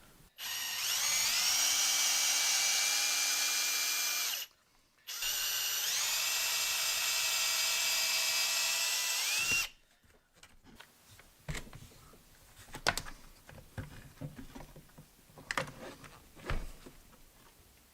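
Cordless drill/driver running in two stretches of about four seconds each, backing out screws from the saw's housing; each time it spins up with a rising whine and then holds a steady pitch. Afterwards come a few light clicks and knocks of parts being handled.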